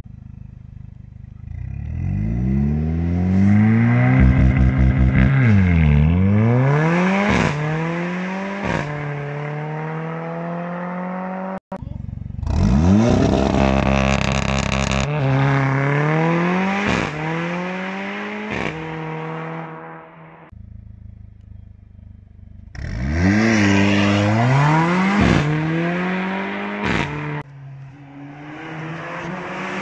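Mercedes-AMG A45's turbocharged four-cylinder engine through an aftermarket performance exhaust, accelerating hard through the gears three times. The pitch climbs and then drops at each upshift with a short sharp crack. A few seconds in there is a rapid stutter while the revs dip and climb back.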